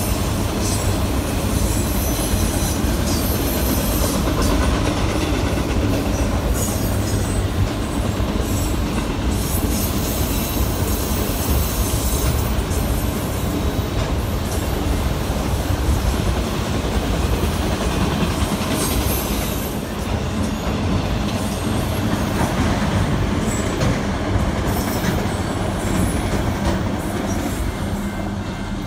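A freight train of autorack cars rolling past, with a steady loud rumble of steel wheels on the rails that holds throughout and high-pitched wheel noise on top.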